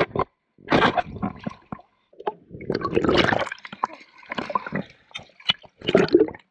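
Sea water splashing and gurgling around a waterproof action camera as it dips in and out of the water. The sound comes in uneven bursts with a couple of brief dropouts near the start.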